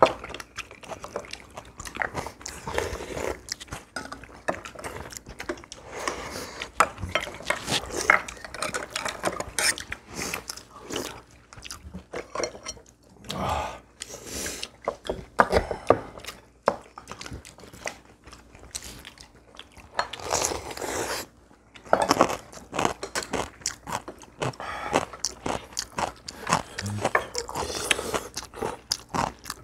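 Several people eating a meal: chewing and biting, with spoons and chopsticks clicking against ceramic bowls and plates in many short, irregular taps.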